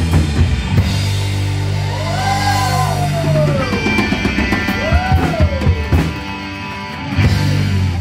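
Live rock band with drum kit, bass, electric guitar and keyboard playing. Drum hits open the passage, then the band holds a low chord while a lead line bends up and down twice, and the drums come back in with hits near the end.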